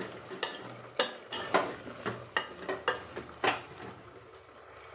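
A spoon stirring a thick vegetable and lentil curry in an aluminium pot, knocking and scraping against the pot about twice a second. The strokes stop about three and a half seconds in, leaving a faint steady hiss from the simmering pot.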